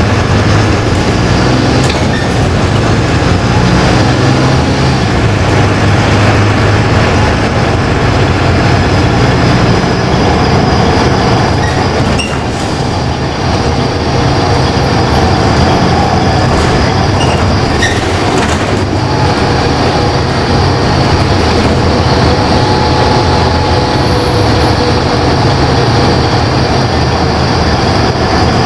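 Inside a LiAZ-5292.20 diesel city bus on the move: the engine drones steadily under road rumble and cabin rattle, with a few sharp clicks partway through.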